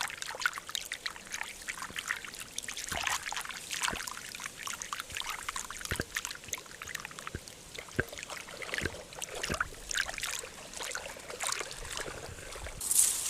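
Water trickling and dribbling in small irregular splashes and drips.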